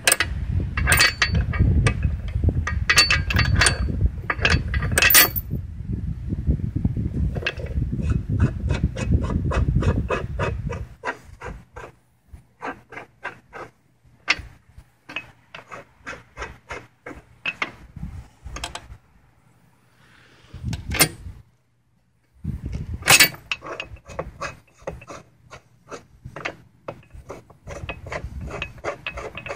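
Steel log dog and chain on a sawmill being worked by hand. For about the first ten seconds there is loud rubbing and clattering. After that come sharp metallic clicks, about three a second, with a short pause and then more clicks.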